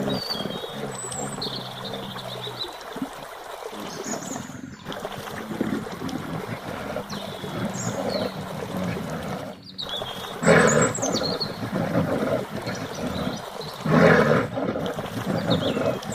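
Wild animal calls: two loud calls about ten and fourteen seconds in, over short high chirps and a low rumbling sound near the start.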